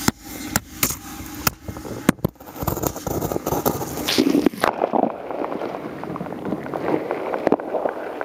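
Camera knocking and scraping against the ice walls of a jiffy hole as it is lowered on its line: a string of sharp knocks over a rough scraping noise. About halfway through the sound turns muffled and dull, its high end suddenly gone, with a few more knocks.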